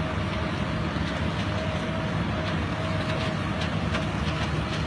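Case IH Steiger articulated tractor's diesel engine running steadily under heavy pulling load, a deep drone with a steady whine on top, as it tows a stuck tractor and planter out of mud.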